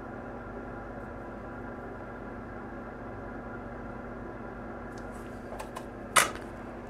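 Steady fan hum from workbench equipment, with a few light clicks about five seconds in and one sharper click just after six seconds.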